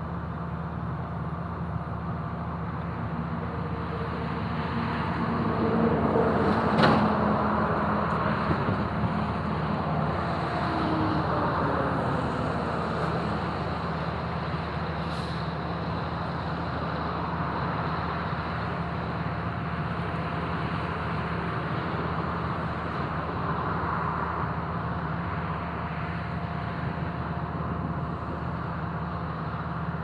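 Excavation machinery on a construction site, running steadily with a low engine drone. About 6 seconds in it swells louder, with a sharp click and a tone that falls in pitch before settling back to a steady hum.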